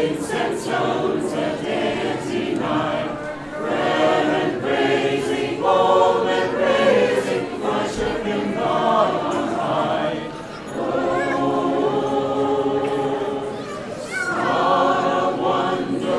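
A choir of carolers singing a Christmas carol in long held phrases, with two brief pauses between phrases.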